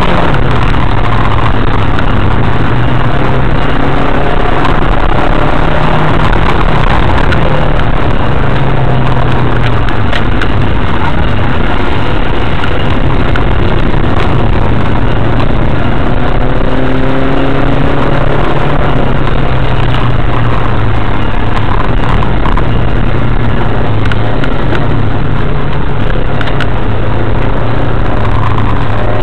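Car engine droning steadily under load as the car climbs, with its pitch drifting slightly, mixed with dense road and tyre noise. Heard loud from inside the cabin through a dashcam's microphone.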